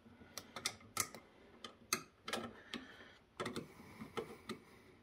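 Irregular light clicks and taps of a small wrench and flathead screwdriver being fitted to a #10 machine screw and nut.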